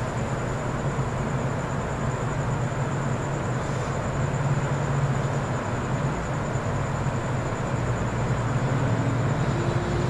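Steady outdoor background rumble with a low hum underneath and a continuous high-pitched trill over it, unchanging throughout.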